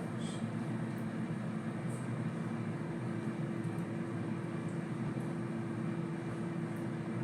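A steady low hum with one constant tone, with a few faint clicks.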